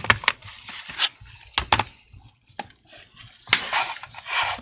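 Plastic clicks and knocks from handling an opened laptop: several sharp taps in the first two seconds, then a rustling, scraping noise lasting about a second near the end.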